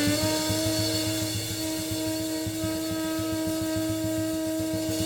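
Background jazz music: a saxophone ends a falling phrase and holds one long note over a steady drum beat.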